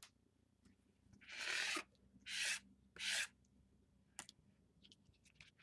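Three short dry scraping swishes of a handheld card, followed by a few faint light ticks.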